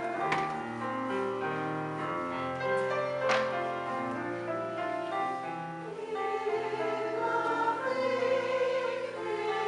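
Community chorus singing a choral piece in several parts, voices holding and moving between sustained notes.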